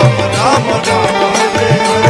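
Instrumental passage of Indian devotional kirtan music: harmonium and electronic keyboard playing a melody with held notes and gliding lines, over a hand drum with repeated low strokes that slide in pitch.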